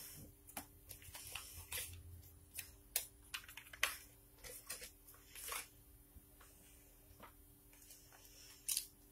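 Oracle cards being handled and shuffled: a string of short, irregular clicks and crisp rustles.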